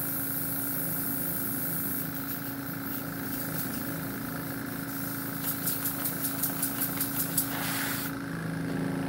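Small airbrush air compressor running with a steady hum and hiss. Past the middle comes a quick run of short puffs of air, then a brief burst of spray from the airbrush.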